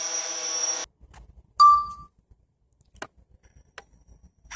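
A DJI Phantom quadcopter hovering, its propellers giving a steady hum with a high whine, cuts off abruptly just under a second in. About a second later comes a single loud, short electronic beep, followed by a few faint clicks.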